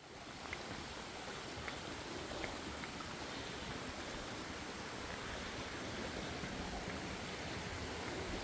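Mountain stream rushing steadily, a continuous even wash of water noise.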